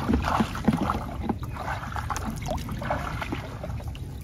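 Shallow water sloshing and trickling, with scattered small splashes, as a gill net is worked by hand in the water.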